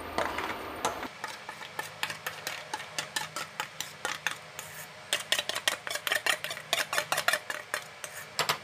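Metal spoon scraping and tapping against a steel bowl while thick onion, tomato and cashew paste is scraped out: a rapid run of clinks and scrapes that gets quicker and louder after about five seconds.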